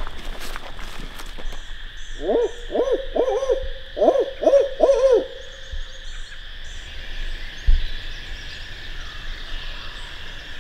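Owl hooting: a quick run of about seven rising-and-falling hoots lasting some three seconds, starting about two seconds in, over a steady high-pitched background drone.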